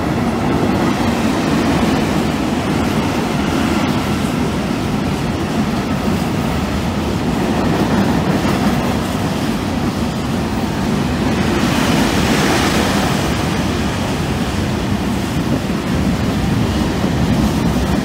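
Freight train of covered hopper wagons behind an electric locomotive running through at speed: a steady rumble and rattle of wheels on the rails, with a brief rise in hiss about twelve seconds in.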